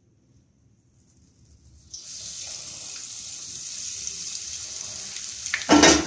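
Breaded chicken drumstick frying in hot oil in an iron kadai. The sizzle starts about a second in and builds to a steady high hiss. A brief louder sound comes near the end.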